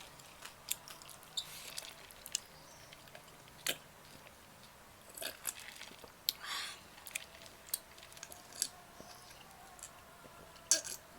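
Close chewing and biting on grilled chicken: scattered sharp mouth clicks and a few short crunchy, smacking bursts, spread irregularly through the stretch.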